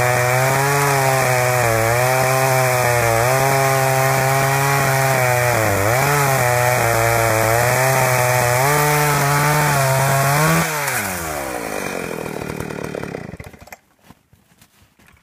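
Husqvarna 61 two-stroke chainsaw engine running, its speed dipping now and then in a misfire, the popcorn sound of a loose kill-switch wire shorting out inside the case. About ten seconds in it cuts out, winds down with a falling pitch and stops.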